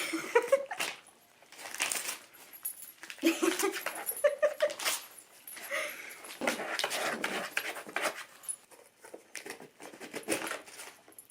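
Dogs ripping and pawing wrapping paper off a gift box, with irregular paper tearing and rustling and a few short whines.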